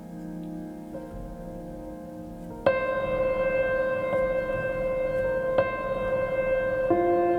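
Background music of long held chords. A louder chord comes in about a third of the way through, and the harmony shifts twice more near the end.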